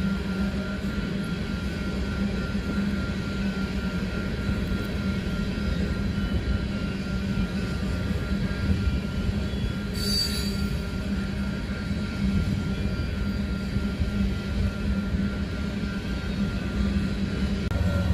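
A long string of coal hopper cars rolling past: a steady rumble of wheels on rail with a thin, steady high whine of wheel squeal over it.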